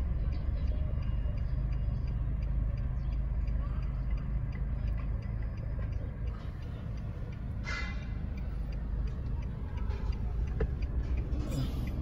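Steady low road and engine rumble heard inside a moving car's cabin, with a faint regular ticking over it and a brief high chirp about eight seconds in.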